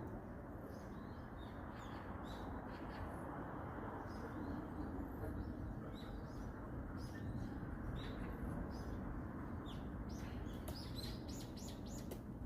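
Eurasian red squirrel giving repeated short, high alarm chirps, scattered at first and coming thicker near the end, over a steady low background hiss.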